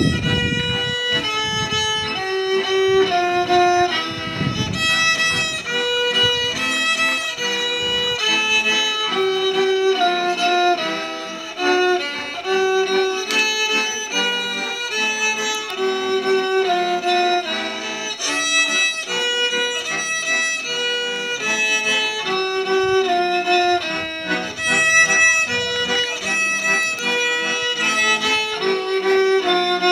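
A violin playing a melody in duet with a piano accordion.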